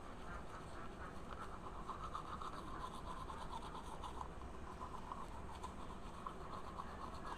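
Manual toothbrush scrubbing back and forth over teeth in a foam-filled mouth, with quick, even strokes.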